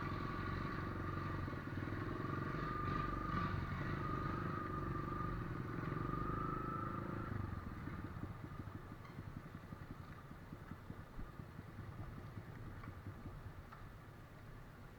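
An off-road vehicle's engine running hard with a high steady whine above the rumble. About halfway through it drops away sharply to a fainter, fading rumble.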